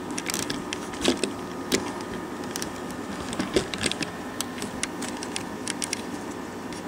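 Handling noise: a scatter of light clicks and knocks as cardboard ammunition boxes are picked up, moved about and set down, with the camera being handled. The louder knocks come about a second in, near two seconds and around three and a half seconds.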